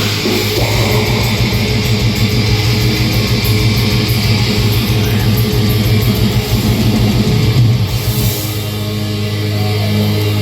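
A black metal band playing live: distorted electric guitars and drums, loud and dense. About eight seconds in, the fast playing stops and a held, ringing chord carries on.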